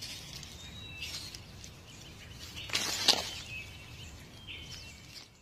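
Small birds chirping in short, high calls over outdoor ambience, with a brief loud burst of noise about three seconds in.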